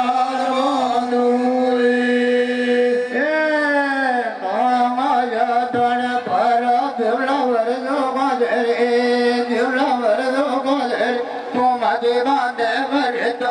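Men singing a chant-like song over a microphone and loudspeakers, with long held notes and sliding pitch, in the manner of Gavri folk-drama singing.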